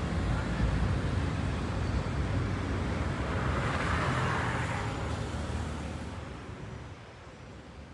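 City traffic noise: a steady low rumble of road vehicles, swelling briefly about four seconds in, then fading out over the last few seconds.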